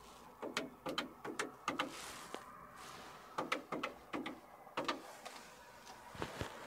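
Keypad of a green Japanese public payphone being pressed to dial a number: a quick run of short button clicks, a pause of about a second, then a second run. A louder knock comes near the end.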